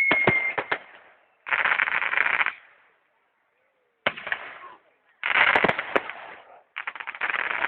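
Fireworks crackling in dense bursts of rapid pops: four separate bursts about a second each, with short gaps between them.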